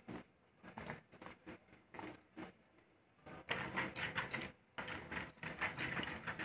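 Metal spoon stirring cornflour into water in a plastic bowl, scraping and tapping against the sides in quick, irregular strokes. The stirring is sparse at first and grows busier a little past halfway.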